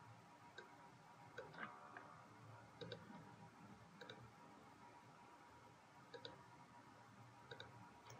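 Computer mouse clicking faintly: a handful of short clicks over low room tone, several of them in quick pairs like double-clicks.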